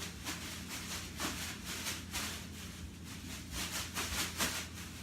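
A quick run of irregular rustling, scraping strokes, about a dozen in five seconds, over a steady low hum.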